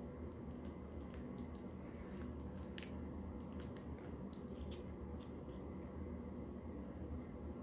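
Scissors snipping a poodle's curly hair around its eye: a dozen or so faint, quick snips over the first five seconds or so, then they stop. A low, steady hum runs underneath.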